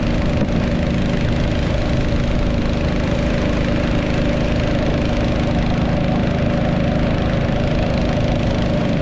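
Motorboat engine running steadily at an even pitch, with a constant rushing noise over it.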